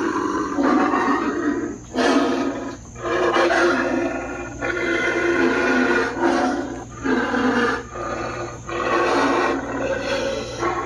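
Animated Immortal Werewolf Halloween prop playing its recorded werewolf growls and snarls. It is a long string of loud roars broken by brief pauses, the sound-activated demo triggered by its motion sensor.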